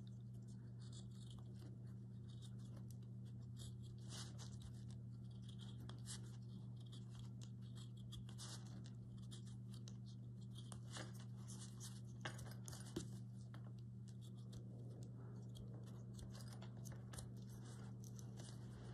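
Carving knife paring thin shavings off the edges of a small wooden block: a series of short, faint scraping cuts at irregular intervals, over a steady low hum.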